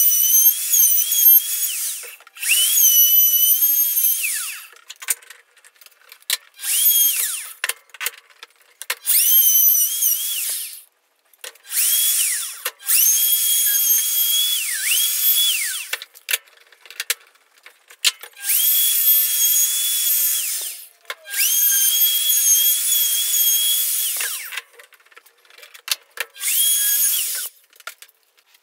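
Ryobi 1600 W plunge router cutting chambers into a wooden guitar body: a high whine that comes in repeated runs of one to three seconds with short gaps between them, the pitch sagging at the end of several runs.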